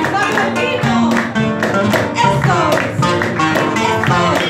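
Live Peruvian jarana (marinera limeña): several nylon-string guitars strummed and picked in a lilting rhythm while a woman sings a melody over them through a microphone.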